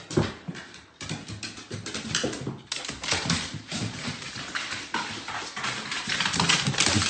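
A dog's claws clicking and tapping on hardwood stairs in a quick, irregular patter, growing louder toward the end.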